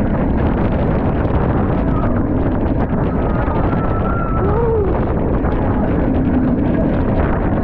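Wind rushing over the microphone of a camera riding a stand-up surf roller coaster at speed: a steady, loud roar, with the coaster train's running rumble underneath.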